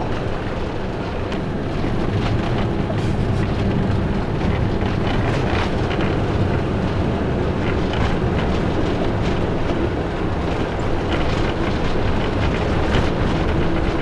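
Two-wheel-drive van driving along a snow-covered road: a steady drone of engine and tyre noise, with scattered faint clicks and knocks.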